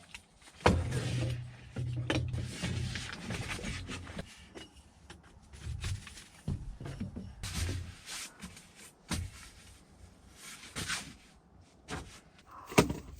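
Handling noises: a knock about a second in, then rubbing and low rumbling, scattered clicks, and a sharp click near the end.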